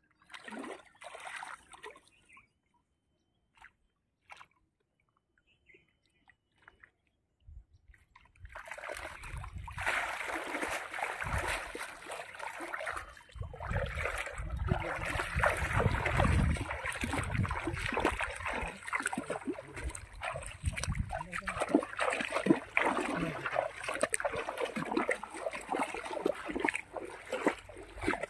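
Shallow muddy pond water sloshing and splashing as a person wades through it and gathers a fishing net. Near silence for the first several seconds, then continuous, irregular splashing from about a third of the way in.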